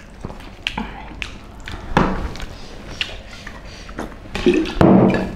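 Eating by hand: rice and curry squished between the fingers and chewed, with scattered light taps and clicks on the plates and a louder knock about two seconds in. A brief burst of voice near the end.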